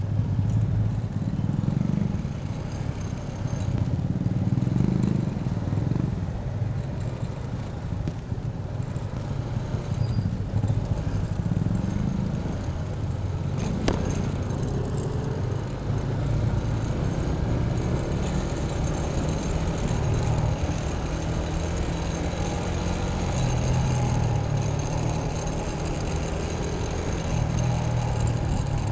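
Motor scooter riding in traffic, its small engine running steadily with road noise, the sound swelling several times as it speeds up and easing off between. A single sharp click about halfway through.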